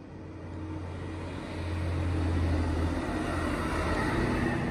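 Yellow on-track rail maintenance machine passing close by: its diesel engine running with a steady low hum and the rumble of its wheels on the rails. It grows louder as it approaches and is loudest through the second half.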